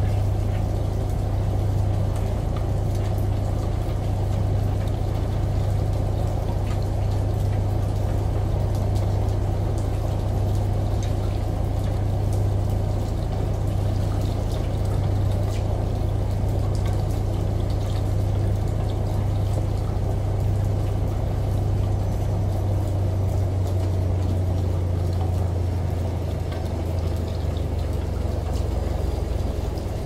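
Front-loading washing machine in its wash cycle: a steady low motor hum as the drum turns, with the laundry tumbling and water sloshing inside.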